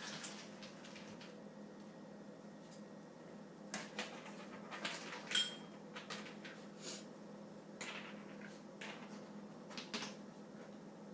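Irregular light clicks and knocks as a Labrador puppy plays with a piece of ice, the loudest a sharp clack about five seconds in.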